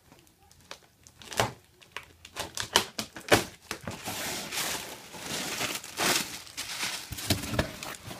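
Cardboard shipping box being opened and unpacked by hand: scattered sharp clicks and knocks, then from about four seconds in a steadier crinkling and rustling of cardboard and packing.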